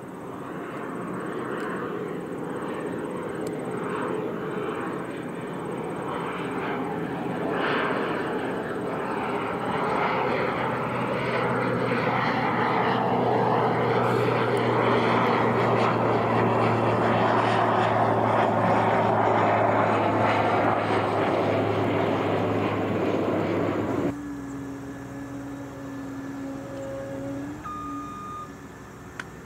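Single-engine turboprop airplane on landing approach, its engine and propeller drone swelling steadily louder as it nears, with a steady low hum underneath. The sound cuts off abruptly about three-quarters of the way through, leaving a fainter, steadier whine.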